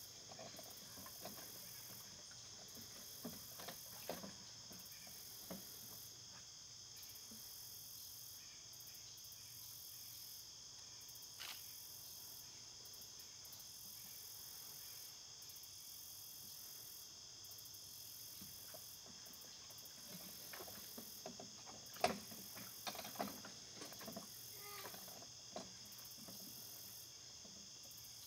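Faint, steady chorus of crickets and other singing insects, with a higher buzz that pulses on and off. A few scattered rustles and knocks break through, the loudest about twenty-two seconds in.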